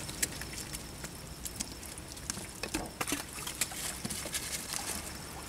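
Wet heap of freshly caught small shrimp, fish and leaf litter on a plastic sack being stirred and picked through, giving scattered light clicks and wet patters over a faint low hum.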